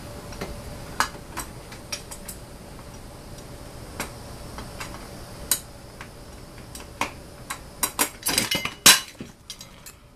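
Metal clicks and clinks from handling an RV door lock and its hardware. There are scattered single ticks, then a quick flurry near the end, with the loudest knock about nine seconds in.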